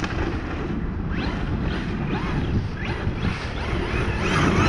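FTX Carnage 2.0 radio-controlled monster truck's electric motor whining, its pitch rising again and again as the throttle is pulsed, louder near the end. Wind rumbles on the microphone underneath.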